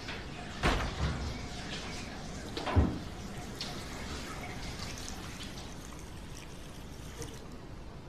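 An apartment front door pushed shut, with two heavy thuds about two seconds apart, the second the louder. Under them a kitchen tap runs steadily into the sink, with light clinks of dishes.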